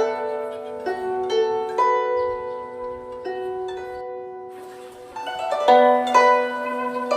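Slow instrumental music on a plucked Chinese zither, single notes ringing on and fading. It thins out around the middle, then a quick run of notes comes near the end.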